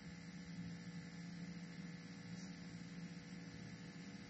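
Faint steady electrical mains hum, a low drone made up of several steady tones.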